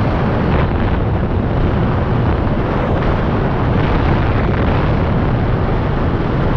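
Wind buffeting a skydiving camera flyer's helmet camera microphone during a descent under an open parachute canopy: a loud, steady, low rumble of rushing air.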